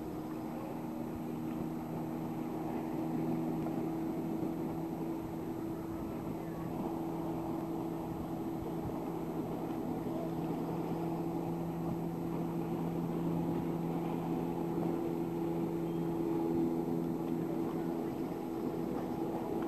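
A steady engine hum, a few low tones that hold level with slight shifts, over an even hiss.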